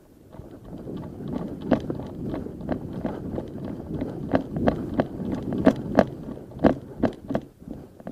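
Footsteps through tall grass and brush, with rustling vegetation and irregular sharp snaps and clicks as the walker pushes through.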